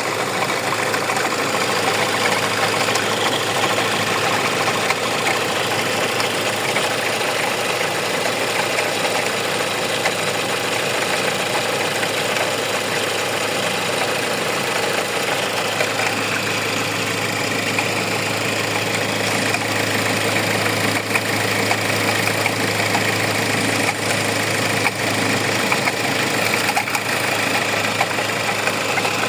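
Hyundai car engine idling steadily, with a noise coming from the alternator pulley, which the owner takes for a faulty alternator pulley.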